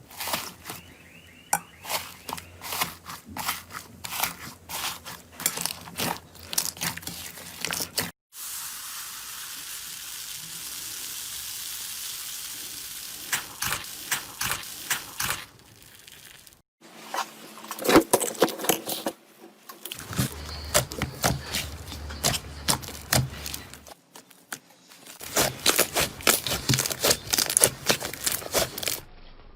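Hands squeezing and poking slime, giving quick trains of sticky clicks and crackles. Several short clips are joined with abrupt cuts, and about a third of the way in there is a few seconds of steady hiss.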